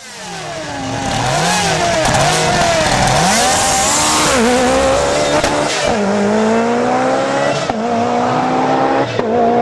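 Lancia Delta S4's supercharged and turbocharged four-cylinder engine pulling hard through the gears, its note climbing and then dropping at each of several quick upshifts. It swells in loud over the first couple of seconds as the car comes up the hill.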